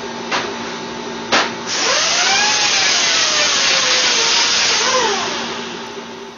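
A power tool whirring over a steady motor hum. After two sharp clicks it runs up loud, its pitch sagging slowly as if under load and dipping again near the end before it fades out.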